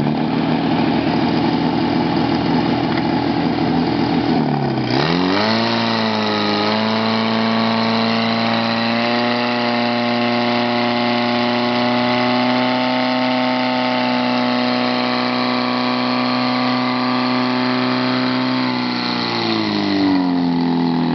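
Portable fire pump engine running at high revs. About five seconds in its pitch sags and swings back up, then holds steady while it pumps water through the hoses; near the end it dips and recovers.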